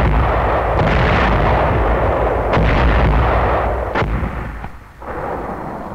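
Artillery firing: a loud, continuous rumble of heavy guns, with sharper reports about a second, two and a half seconds and four seconds in. It eases near the end, then swells briefly again.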